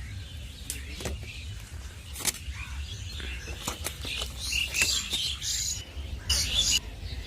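Small birds chirping irregularly over a low, steady rumble.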